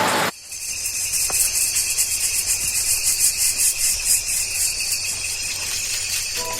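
Insects trilling in a steady, high-pitched, rapidly pulsing chorus, beginning abruptly just after the start.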